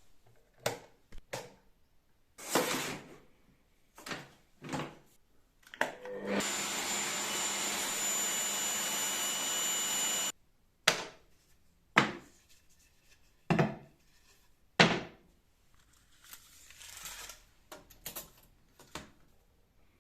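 Woodworking shop sounds: a string of separate wooden knocks and short scrapes, and in the middle a power tool running steadily with a high whine for about four seconds before it cuts off abruptly.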